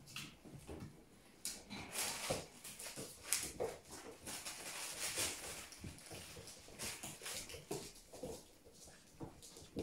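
Collie puppies playing with a plush toy on a blanket: rustling and scrabbling on the fabric, with a few short puppy vocal sounds mixed in, busiest in the middle.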